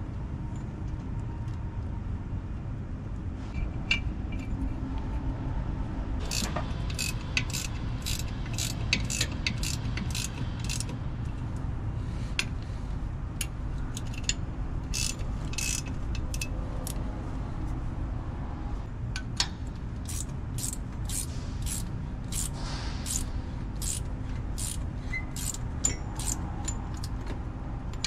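Hand-tool work on a fire pump's bearing housing: runs of sharp metallic clicks, about two a second, coming in several spells, over a steady low hum.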